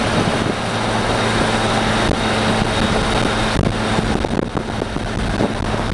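Steady vehicle noise: a running engine's low hum under a constant rushing of wind and traffic.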